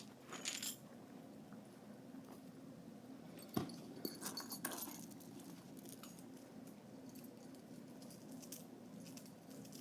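A fidget toy being handled: light clicks and clinks, with one sharper click about three and a half seconds in and a few more just after.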